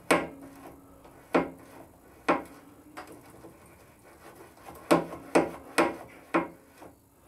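Freshly oiled folding passenger footrest on a BMW R1150GS being worked up and down by hand, snapping against its stop with sharp metal clicks that ring briefly. There are three spaced clicks in the first couple of seconds, then a quicker run of four near the end.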